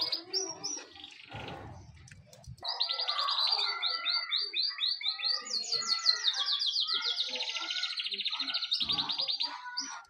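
Domestic canary singing: a long, loud song of fast trills, each phrase a rapid run of repeated high notes, the pitch stepping up and down from phrase to phrase. It starts about three seconds in and lasts about seven seconds.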